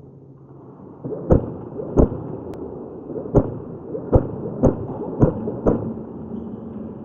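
Airsoft fire: seven sharp cracks at uneven intervals, about half a second to a second apart, from about a second in, over a muffled rumbling background.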